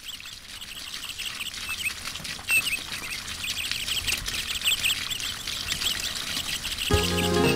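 A chorus of small birds chirping, fading in and growing louder. Near the end, Spanish guitar music starts.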